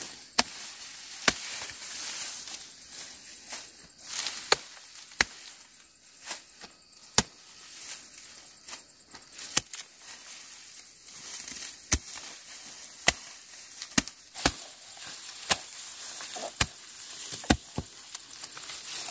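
Sickle cutting through rice stalks in sharp, irregular snaps about once a second, with a rustle of straw between cuts.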